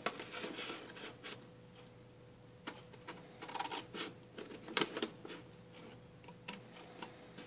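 Scissors snipping through a folded sheet of paper along its fold: a series of short cuts with paper rustle, pausing about a second and a half in, then resuming.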